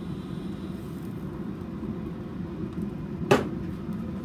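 A steady low hum, and a single sharp knock about three seconds in.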